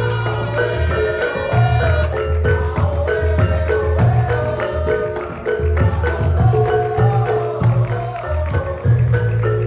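Reyog Ponorogo ensemble music in a Banyuwangi-flavoured arrangement: repeated low hand-drum strokes under a wavering melody, with ringing mallet-struck percussion.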